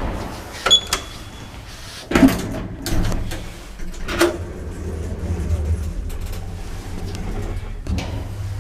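Lift (elevator) in use: clicks and knocks of the doors and buttons, a short high beep about a second in, then a steady low hum as the lift car runs.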